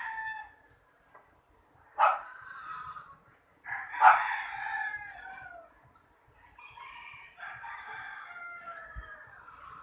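Rooster crowing several times in turn, each crow sliding down in pitch at its end.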